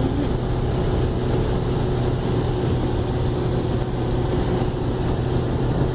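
Heavy rain pouring down in a steady rush, with a low, steady hum beneath it.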